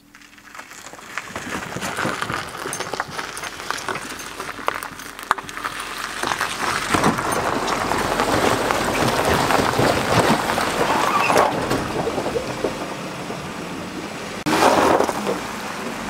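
Vehicle tyres crunching slowly over a gravel boat launch as a minivan backs a boat trailer into the water, with water sloshing around the trailer; dense crackling that builds over the first couple of seconds, with a sudden louder stretch near the end.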